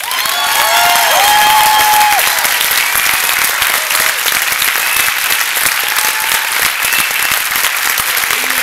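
Audience applauding, breaking out all at once into dense, steady clapping, with a few cheering shouts in the first two seconds.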